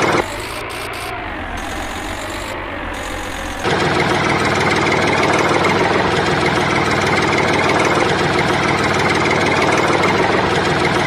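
Tractor engine idling steadily, an engine sound laid over the soundtrack of a string-pulled toy tractor. It drops noticeably quieter for about three seconds just after the start, then comes back up.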